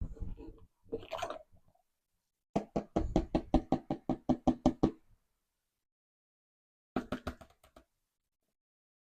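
Rapid, even knocking on a gold pan, about seven knocks a second, in short runs with the longest lasting about two and a half seconds.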